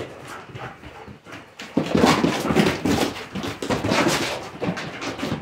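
Young German Shepherd vocalizing and scuffling on the concrete as it bites and tugs at a flirt-pole lure. The sound turns loud and rough from a little under two seconds in.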